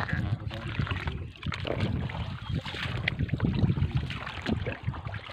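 Shallow seawater sloshing and splashing as someone wades among rocks, with wind buffeting the microphone and irregular knocks.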